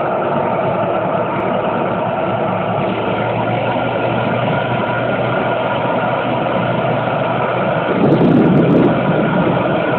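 KiHa 205 diesel railcar (KiHa 20 series, DMH17-type diesel engine) running steadily at low speed, heard through an open window, with wind buffeting the microphone. The noise swells louder for about a second roughly eight seconds in.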